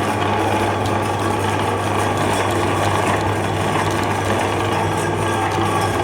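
Meat grinder motor running at a steady pitch with a constant low hum and mechanical whirring, grinding ice cream.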